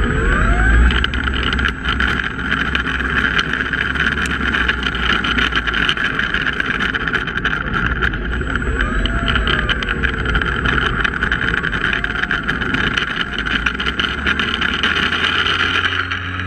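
Small propeller plane rolling on pavement, heard from a camera mounted under it: engine and propeller running under a steady rush of wind and tyre noise, with many small ticks. Near the end a steady low engine drone comes up.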